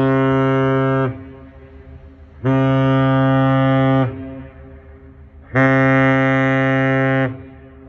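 Great Lakes freighter Hon. James L. Oberstar's steam whistle sounding a loud salute: a long blast that stops about a second in, then two more blasts of about a second and a half each, one steady, chord-like tone.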